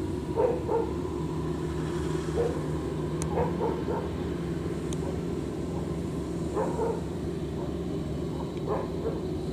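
Engine of a tracked rice-sack carrier running steadily. A dog barks in short pairs about four times.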